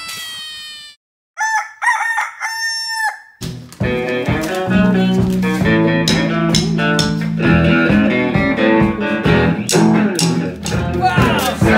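A sliding tone dies away in the first second, then a rooster crows. From about three and a half seconds in, a band plays with guitar and drums.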